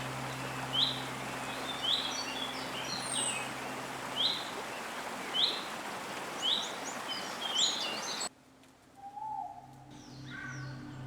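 A bird repeats a sharp, downward-sweeping chirp about once a second, with fainter chirps from other birds, over a steady hiss of forest ambience. About eight seconds in, this cuts off suddenly and soft music takes over.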